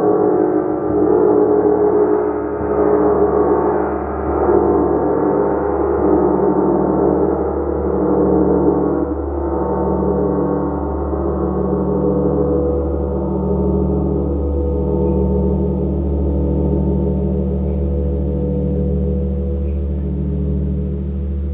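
Gong ringing in a dense, sustained wash of low and mid tones that swells and ebbs every second or two. The higher overtones slowly fade away, leaving the deep hum.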